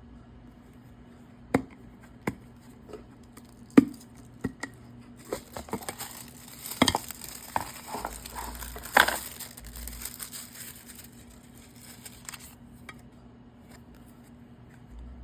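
Packaging being unwrapped by hand: a few sharp knocks and taps, then several seconds of crinkling wrapping with sharp clicks mixed in, stopping suddenly about twelve seconds in.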